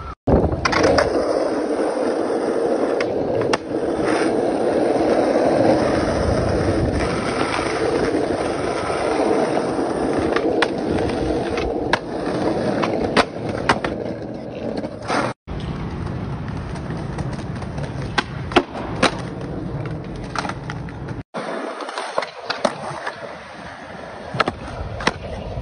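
Skateboard wheels rolling hard over concrete, with sharp wooden clacks from pops, ledge hits and landings scattered throughout. The rolling cuts off abruptly a few times.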